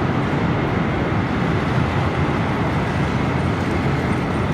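Steady, dense rumbling noise of an amusement park around a roller coaster, with no single event standing out.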